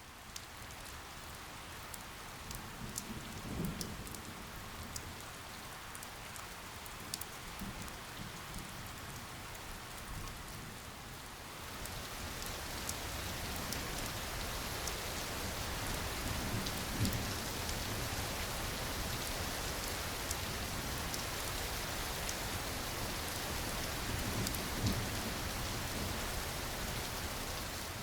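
Steady rain falling, growing heavier and brighter about twelve seconds in, with a few low rumbles of thunder.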